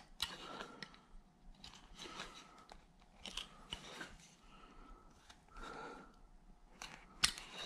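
Carving knife slicing into a hand-held wooden figure in a run of short, irregular cutting strokes, the loudest one near the end.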